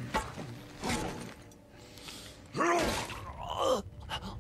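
Film battle soundtrack: two sharp clashing hits, then a loud yelling cry that rises and falls in pitch, followed by a second, falling cry.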